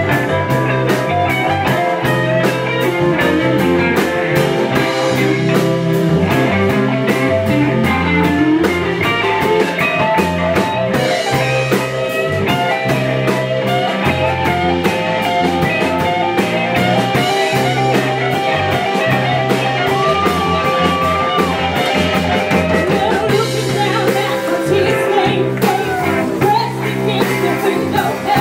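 Live R&B band playing: electric bass, drums and guitar, with a woman singing.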